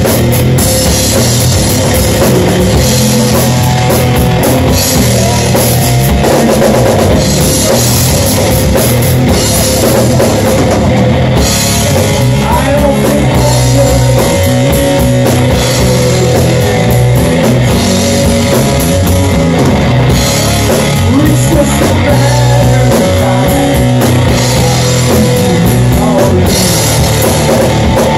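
Live rock band playing loud and without a break: distorted electric guitar over a full drum kit.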